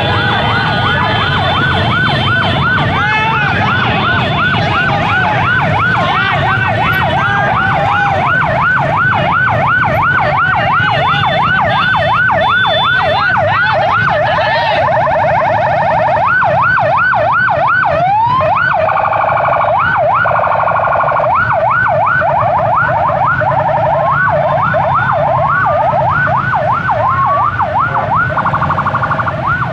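Electronic sirens in a rapid yelp, several overlapping, switching to a faster warble about halfway through, over the low rumble of a crowd of motorcycle engines.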